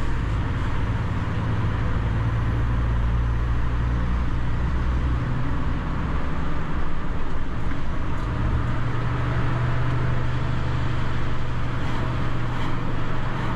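Volvo HGV's diesel engine pulling steadily up a steep hill under load, with road and wind noise. The low engine note changes about five seconds in, with the automatic gearbox back in charge as the truck gathers speed.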